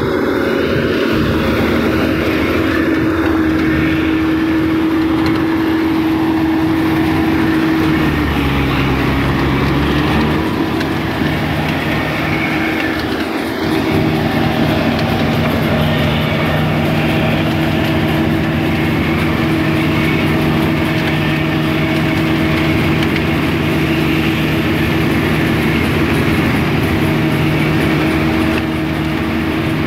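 Kubota DC-35 rice combine harvester running steadily, its diesel engine and threshing machinery droning. About eight seconds in the pitch drops for a couple of seconds, then comes back up.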